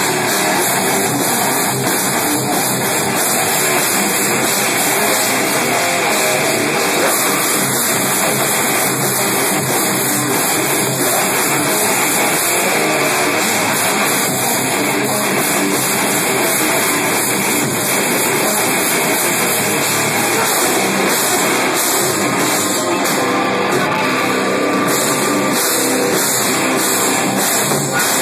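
Rock band playing live and loud: distorted electric guitars over a drum kit.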